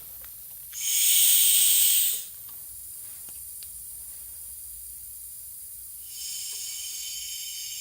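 Compressed air hissing from a leak-down tester on an engine cylinder the owner calls a little leaky. A loud burst of hiss starts about a second in and lasts just over a second, and a steadier, quieter hiss sets in about six seconds in.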